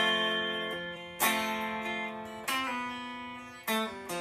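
Electric guitar playing a slow chord progression: four chords struck about a second apart, each left to ring out and fade.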